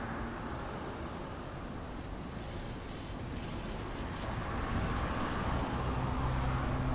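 Audi A1 hatchback driving slowly over brick paving, its engine and tyres growing louder about five seconds in as it passes close by.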